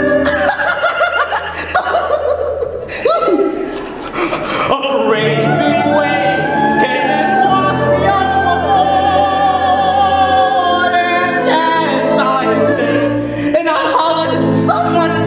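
Live musical-theatre singing over accompaniment: a male voice holds a long note with vibrato through the middle, with other voices around it.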